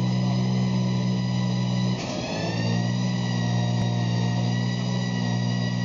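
Intro music: a sustained, droning chord of steady tones that changes about two seconds in, with the upper notes gliding slightly upward before settling.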